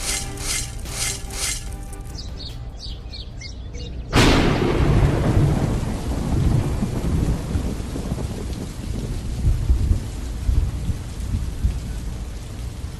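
Background music with a steady beat fades out in the first couple of seconds. About four seconds in comes a sudden loud crack of thunder, followed by a long low rumble that slowly dies away.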